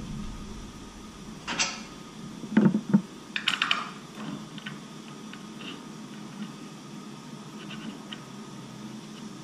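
Metal parts of a roof-rack light bar and its mounting bracket knocked and clicked by hand while being fitted: a handful of sharp knocks and clicks in the first four seconds, then only faint small ticks.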